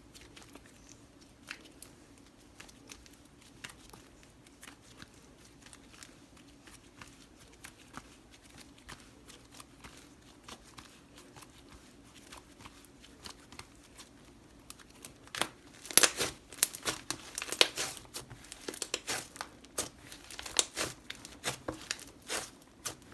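Thick clay-based butter slime being stretched and squished by hands: sparse, quiet sticky clicks at first, turning to louder, rapid crackling and popping about fifteen seconds in.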